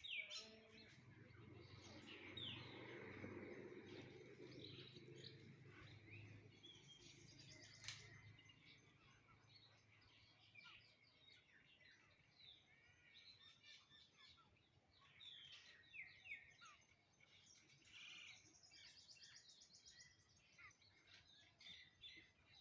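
Faint birdsong: many short chirps and falling call notes, with a couple of rapid trills, one about a third of the way in and one near the end. A low rumble swells and fades over the first several seconds.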